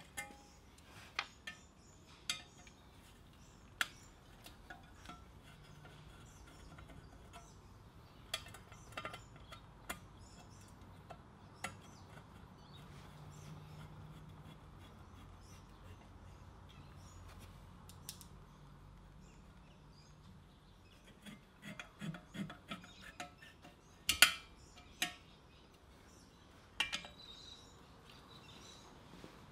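Screwdriver working the fan-guard screws of an electric motor: scattered small metallic clicks and taps as the screws and washers are turned and handled, with a cluster of louder clinks a little past two-thirds of the way through.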